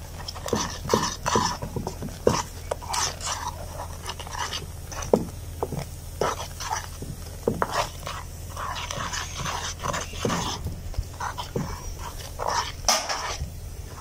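Wooden spatula stirring and scraping a thick milk and sugar mixture in a metal karai, in short, irregular strokes.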